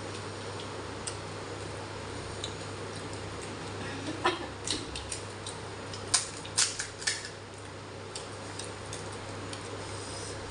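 Crisp hollow fuchka (pani puri) shells being cracked open by hand and handled on a plate: sharp crackling clicks about four seconds in and a quick cluster of them around six to seven seconds, over a steady low hum.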